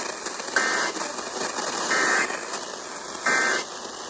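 Emergency Alert System End-of-Message signal: three short bursts of warbling digital data tones, about 1.3 seconds apart, over steady radio hiss. The bursts mark the end of the alert.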